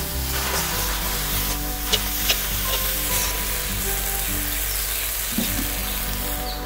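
Bottle gourd leaves sizzling as they are stir-fried in a metal wok, with a metal spatula turning them and clicking against the pan twice about two seconds in.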